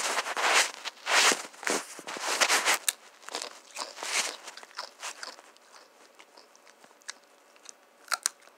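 A crunchy rolled tortilla chip (Doritos Dinamita) being bitten and chewed close to the microphone: a run of loud, irregular crunches over the first three seconds, then quieter chewing clicks.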